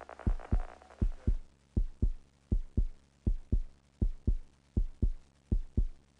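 A heartbeat sound effect: low double thumps in an even lub-dub rhythm, about 80 beats a minute. A soft musical tone over the first second or so fades away, leaving the heartbeat alone.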